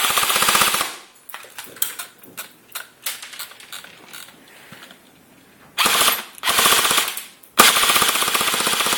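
Airsoft gun firing rapid full-auto bursts at a phone battery, with BBs striking it. There are three bursts: one ending about a second in, another about six seconds in, and a last one near the end, with scattered single ticks between them.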